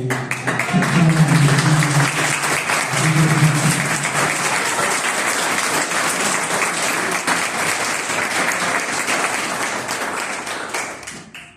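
Audience applauding steadily, with a voice heard over the clapping in the first few seconds; the applause fades out near the end.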